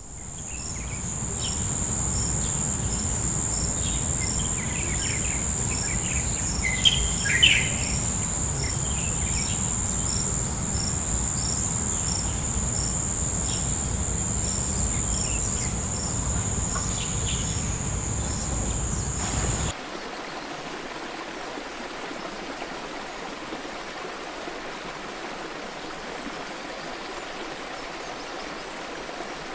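Nature ambience: a steady high-pitched insect trill with a low rumble beneath and a few bird chirps about seven seconds in. About twenty seconds in it cuts off abruptly to the steady, quieter rush of a waterfall.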